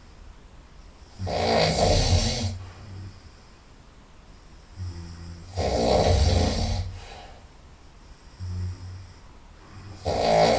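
A person snoring loudly through the nose, the snores coming about every four seconds, each with a fainter breath before it. The last snore starts near the end.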